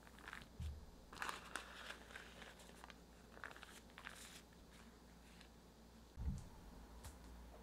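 Parchment baking paper faintly rustling and crinkling as it is peeled back and flattened, with two soft low thumps, one near the start and a stronger one near the end.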